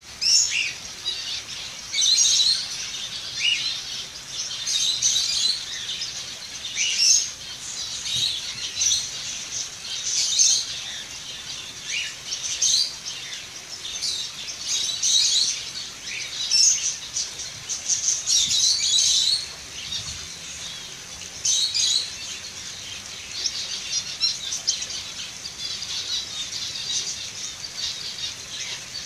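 Zebra finches in an aviary calling: short, high calls that repeat every second or two and overlap, from several birds at once.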